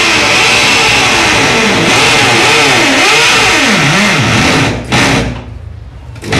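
Electric drill with a large core bit boring the pipe hole through a wall, the motor's pitch wavering up and down as the bit bites. It runs loud, then eases off and slackens near the end.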